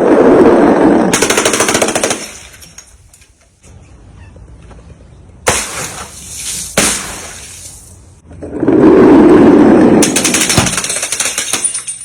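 Loud, fast rattling crackle in two long stretches, with two sharp bangs a little over a second apart between them.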